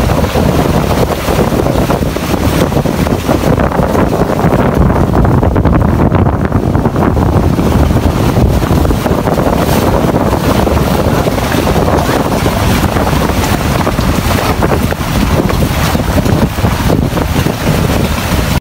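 Steady wind buffeting the microphone aboard an outrigger fishing boat under way, mixed with the continuous rush of water and the boat running.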